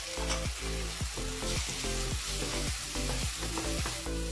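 Onions and spices sizzling in hot oil in a nonstick frying pan, with a splash of water just added, while a wooden spatula stirs them. Background music with a steady beat plays underneath.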